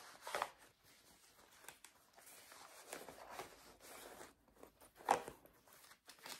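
Faint rustling and handling noises as cross-stitch projects and their bags are moved about by hand: a few short rustles, the loudest about five seconds in.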